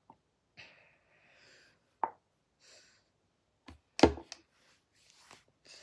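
Handling noises from a squeezed makeup tube and hands: soft rustles, a sharp click about two seconds in and a louder knock about four seconds in.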